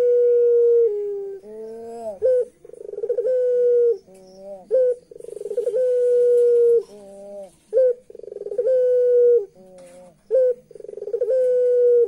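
Puter pelung (ringneck/Barbary-type turtle dove) cooing over and over, a call about every two and a half to three seconds. Each call is a fast rolling stutter that runs into a long, steady, held note, with short rising notes between the calls.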